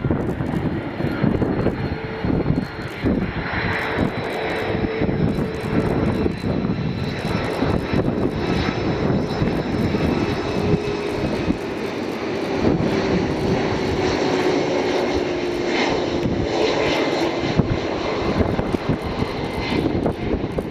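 Airbus A330-200 on final approach with its gear down, its two General Electric CF6-80E1 turbofans giving a steady, dense jet noise with faint whining tones running through it.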